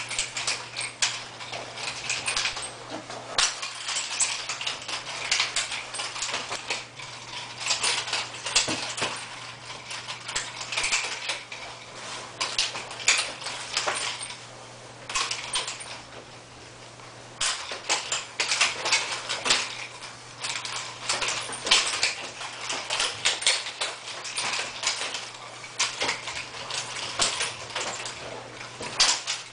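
Metal chain of a ball-bearing swivel nunchaku jingling and clicking in quick irregular bursts as it is swung through passes and rolls, its bearings freshly cleaned and re-lubricated. There is a brief pause about halfway through.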